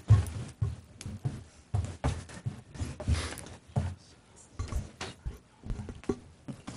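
Irregular soft thumps, knocks and rustling of people moving about and gathering belongings, with a brief rustle about three seconds in.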